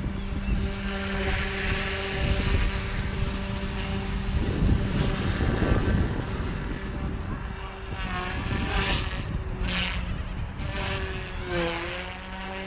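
OMPHOBBY M2 mini electric RC helicopter in flight, its direct-drive dual brushless motors and rotors giving a steady whine that dips in pitch and comes back up a few times in the second half as it manoeuvres. Wind buffets the microphone underneath.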